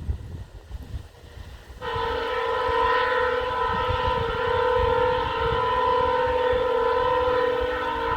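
Via Rail diesel locomotive's air horn sounding one long chord of several notes, starting about two seconds in and held steady for about six seconds, over the low rumble of the train.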